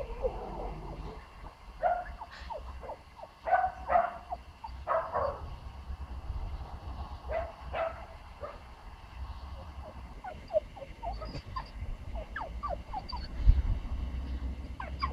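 Puppy yipping and barking in short high calls, several in quick succession, then thinner whining squeaks in the second half.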